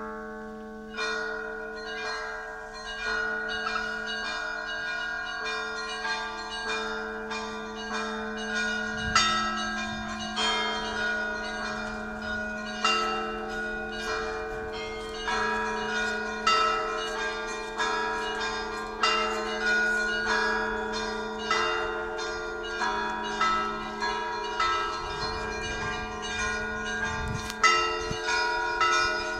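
Russian Orthodox church bells rung by a bell ringer: several bells of different pitch struck in a quick rhythmic pattern, their tones ringing on and overlapping over a sustained low hum. A louder, deeper stroke stands out about nine seconds in and again near the end.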